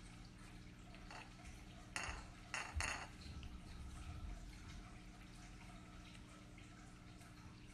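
A cat lapping from a small saucer, with soft wet clicks, faint under a steady low hum. About two to three seconds in there are three short, louder noises, likely the saucer knocked or scraped on the wooden floor.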